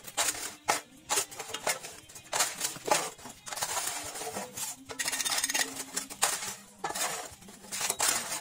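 A metal hand scoop scraping gritty concrete mix out of a wheelbarrow and tipping it into the mould of a manual paving-block press: a run of irregular scrapes and rattles.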